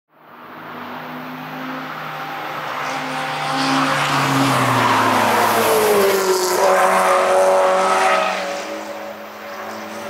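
BMW sports car's engine running hard as it passes on a race track: the sound fades in and builds as it approaches, is loudest mid-way, drops in pitch as it goes past, then eases off near the end.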